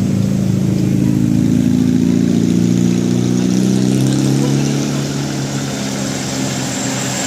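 A large road vehicle's engine running loudly as it passes close by. It drops slightly in pitch and fades somewhat after about four and a half seconds.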